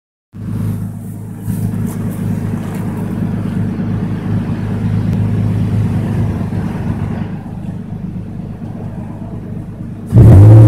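2005 Nissan Xterra's 4.0-litre V6 idling steadily through a Flowmaster Super 44 muffler. Near the end the throttle is opened and the exhaust suddenly gets much louder as the revs start to climb.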